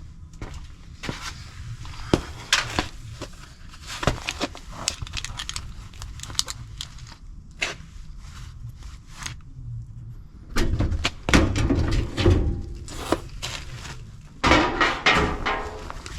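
Hands working on a gas furnace's metal cabinet and parts: a run of scattered clicks and knocks, with louder rattling and scraping about ten seconds in and again near the end.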